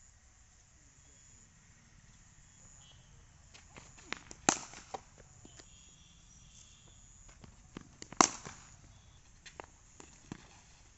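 Cricket bat striking the ball in net practice: two sharp cracks about four seconds apart, with fainter knocks around each.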